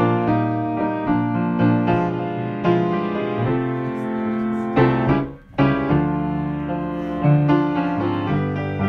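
Solo piano music, with a brief break a little past halfway.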